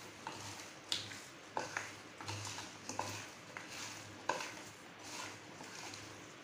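Raw potato slices being tossed by hand in a ceramic bowl to mix in salt. The slices shuffle softly, with irregular sharp clicks as they knock against each other and the bowl.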